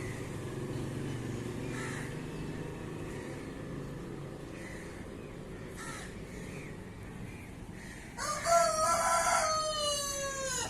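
An animal's single long call, starting rough and then held with a slowly falling pitch, about eight seconds in, over a low steady rumble.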